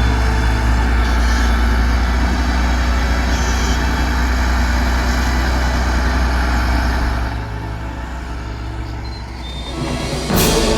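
Heavy road vehicle such as a truck, its engine giving a loud, steady low rumble that eases off about seven seconds in. A sudden loud burst comes near the end.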